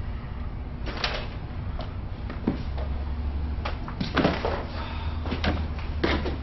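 Several short, irregular knocks and thuds, the loudest cluster about four seconds in, over a steady low hum.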